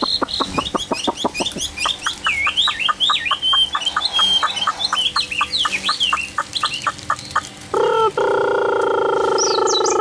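Chinese hwamei singing: fast runs of repeated notes, about eight a second, with high warbling phrases over them. About eight seconds in, a loud, steady, lower-pitched held tone from another source takes over and lasts to the end.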